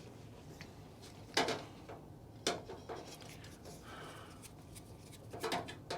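A few sharp knocks and clicks with light rubbing, from parts of a stereo unit being handled, the loudest two about a second apart early on and a quick cluster near the end.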